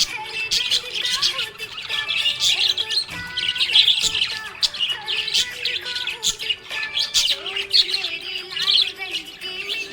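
Budgies chirping and warbling without a break: a dense run of quick, high chirps and twitters.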